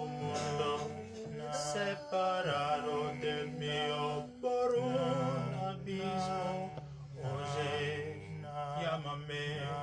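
Multitrack a cappella male singing: one man's voice layered in several parts, with low held harmony notes under a moving lead melody.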